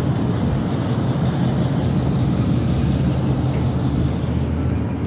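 Freight train rolling past, pushed by an EMD switcher locomotive: a steady low rumble.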